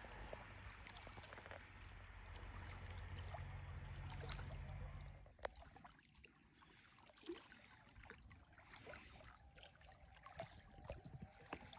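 Near silence with faint water sounds from the sand-dug hot spring pool: a soft trickle and small splashes. A low rumble fades out about five seconds in.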